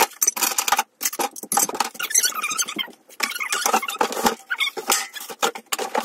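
Cardboard box and packaging rustling and crinkling in rapid, uneven crackles, with a few short pauses, as flat-pack trolley parts are lifted out.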